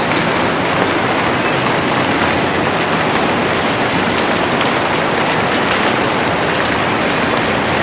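Steady soft rain falling in a forest, a dense even patter with no breaks. A thin, high steady tone comes in over it near the end.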